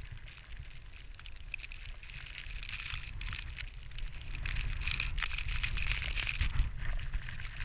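Footsteps crunching in snow, irregular crunches and rustles, over a low wind rumble on the microphone.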